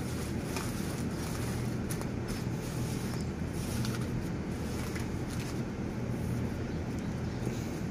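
A steady low machine hum, with faint scratchy rustles of gloved hands pressing and brushing coco peat in a plastic seedling tray.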